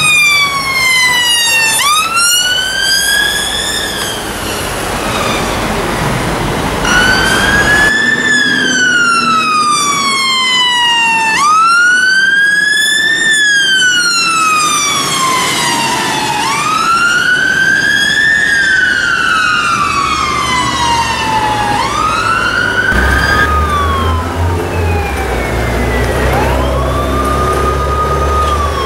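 Emergency vehicle sirens on a slow wail, each sweep a quicker rise and a longer fall, repeating every four to five seconds: first a Land Rover Discovery rapid response car, then a Scania P280 fire engine, then a Land Rover Freelander fire officer's car. A low engine and road rumble grows in the last few seconds.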